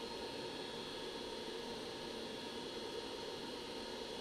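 Hot air rework station blowing: a steady hiss with a low mains hum.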